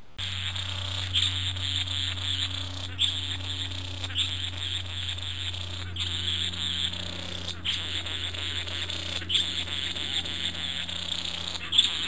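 Green male satin bowerbird giving a rapid, rasping, buzzing churr in phrases about a second long, over a steady low hum.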